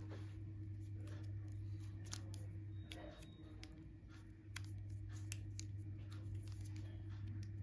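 Small clicks and plastic crinkles from hands handling a smartwatch in its clear plastic protective cover, over a steady low hum that drops out for a second or so in the middle.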